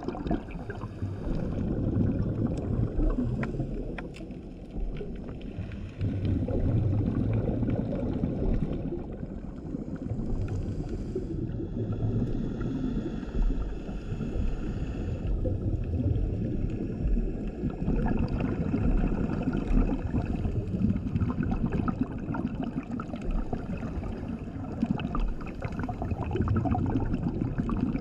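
Scuba regulator breathing recorded underwater: a bubbling rumble of exhaled air that swells and eases with each breath.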